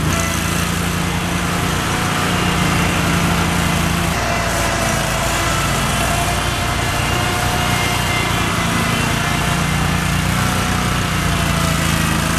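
Toro Dingo TX427 mini skid steer's engine running steadily, with a faint whine that wavers slightly in pitch.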